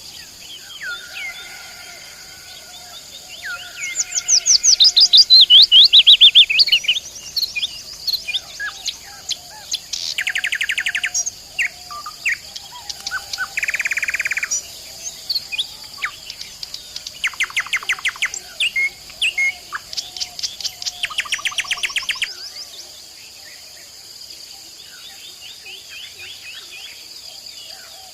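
Nightingale singing in varied phrases: loud sweeping whistles, bursts of rapid repeated notes and a short harsh buzz, with pauses between, over a steady high insect trilling.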